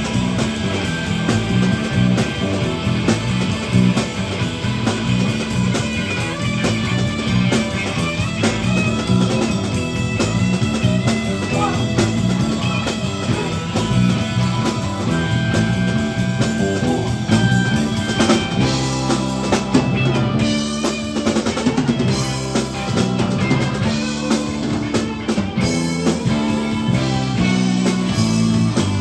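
Live rock band playing an instrumental passage with no vocals: guitars over bass and a drum kit keeping a steady beat.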